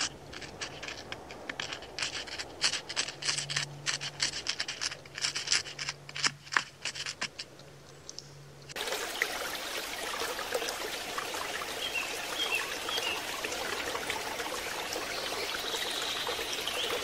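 A beaver chewing leaves, a dense run of crisp crunching clicks. About nine seconds in it gives way to a steady rush of water.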